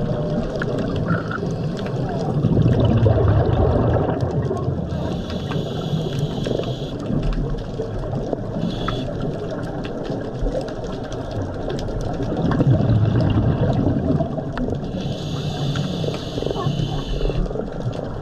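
Underwater sound of a scuba diver breathing through a regulator: two breaths, each a loud bubbling exhalation followed by a hissing inhalation, over steady water noise.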